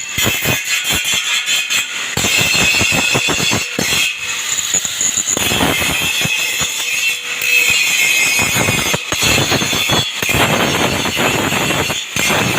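Angle grinder grinding a steel frame: a loud high-pitched whine over harsh scraping, dipping briefly and coming back again and again as the disc is pressed and eased off the metal.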